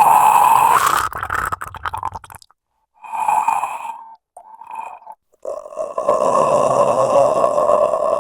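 Horror sound effects: creature-like growling and groaning. A loud cry starts suddenly and breaks off about two seconds in, two short growls follow, then a long drawn-out groan begins about halfway through.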